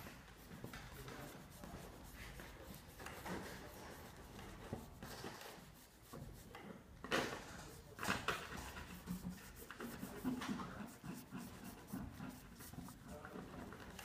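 Marker tip scratching and rubbing on paper in quick repeated shading strokes, with a few louder strokes about seven and eight seconds in.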